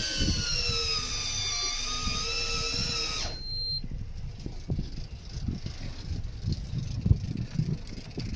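Electric fishing reel motor whining steadily as it winds in line from a deep drop, its pitch wavering slightly under load, then cutting off suddenly about three seconds in. After that come wind rumble and low knocks and water sloshing against the hull.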